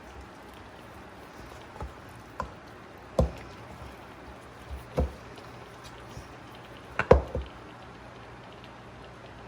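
A spoon knocking and tapping against a dish while scraping thick cake batter, several separate knocks with the loudest about three, five and seven seconds in.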